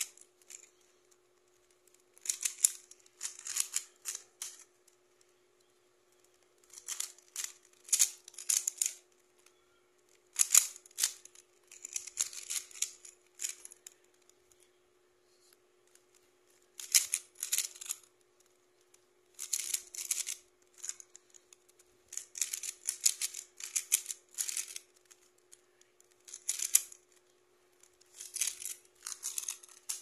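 Plastic mirror cube being turned by hand, its layers clicking and clacking in quick bursts of several turns at a time, with short pauses between the bursts.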